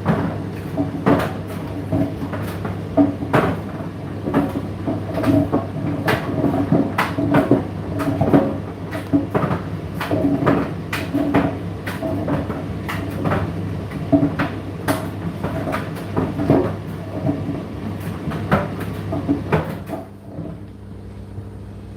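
Indesit IDC8T3 condenser tumble dryer running, a steady motor hum with laundry tumbling in the drum and frequent irregular knocks. Near the end the tumbling and knocks stop and a quieter hum carries on.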